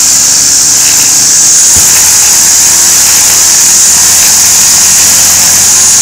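String trimmer (weed whip) running flat out with its spinning line held against a painted wooden board, sanding the wood: a loud, steady, high-pitched whir.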